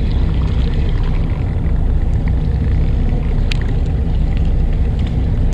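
Fishing boat's engine running steadily, a continuous low rumble, with a faint click about three and a half seconds in.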